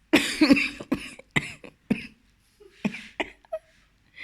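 A woman coughing in a fit of about six coughs, the first long and loudest, the rest shorter and spaced out.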